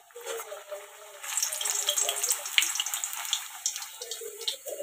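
A pea-stuffed kochuri deep-frying in hot oil: a steady sizzling hiss that grows louder about a second in, with a few sharp pops.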